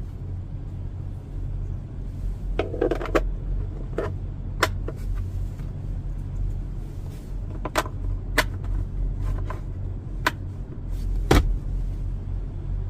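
Plastic clicks and knocks from handling the glove box and cabin air filter cover, about nine sharp ones spread out, a cluster of rattles about three seconds in and the loudest near the end, over a steady low hum.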